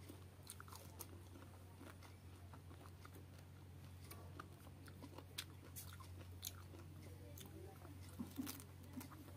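Faint close-up sounds of a person biting and chewing fresh pineapple chunks: scattered short mouth clicks over a steady low hum.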